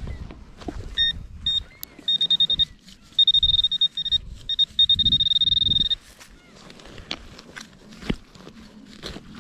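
Metal detector giving a high-pitched target tone, first in short beeps and then in longer held signals, as the coil is swept over a buried metal target. It stops after about six seconds, and scattered crunches and clicks follow.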